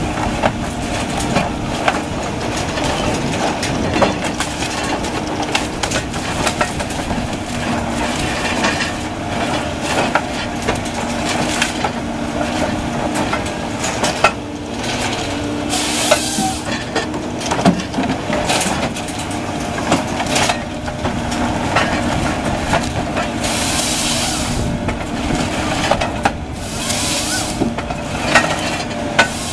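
Log Max 7000XT harvester head on a Kobelco excavator carrier processing radiata pine: the diesel engine and hydraulics run steadily under load while the feed rollers and delimbing knives work the stems, with frequent sharp cracks and knocks of snapping branches and wood. A few short hissing bursts stand out, three times in the second half.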